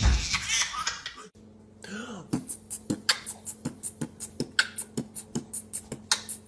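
A baby laughing, cut off about a second in; then a man beatboxing a quick, even beat of sharp mouth clicks and puffs, about five a second.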